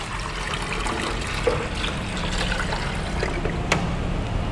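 Water pouring from a plastic jug into the water tank of a Gemilai CRM 3018 espresso machine, a steady trickling stream filling the reservoir. A single light click sounds near the end.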